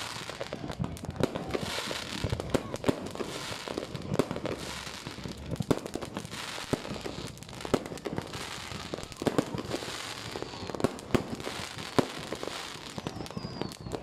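Fireworks display: a dense, irregular run of sharp bangs from bursting shells over continuous crackling.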